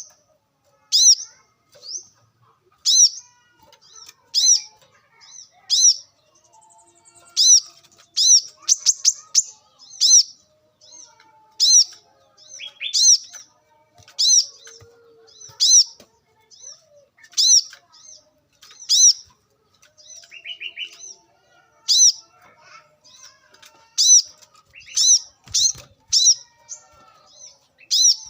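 Brown-throated sunbird calling: sharp, high chirps repeated about once every second or so, with a few quick rattling runs of notes, around eight seconds in and again around twenty seconds.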